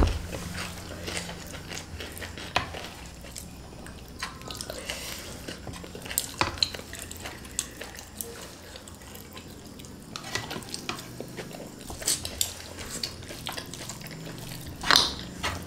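Eating sounds: plastic spoons and forks tapping and scraping against a metal tray and a small glass bowl, with wet chewing of fried flat rice noodles. The clinks come at irregular intervals.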